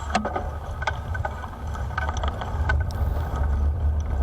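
Wind buffeting the microphone of a moving bicycle, with irregular clicks and creaks from the bike, which the rider calls really noisy. He suspected the bottom bracket, but a check at home did not seem to bear that out.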